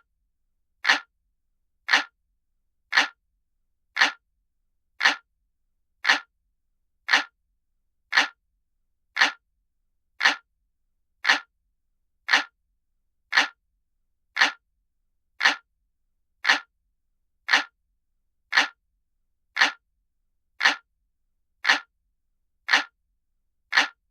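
Clock ticking sound effect: a sharp tick about once a second, evenly spaced, with silence between the ticks.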